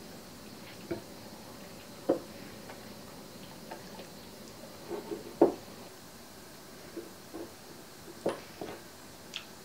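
Silicone spatula stirring thick peanut butter into melted butter in a glass bowl: about ten soft, irregular knocks and taps as the spatula strikes the glass, with a light squish of the mixture between them.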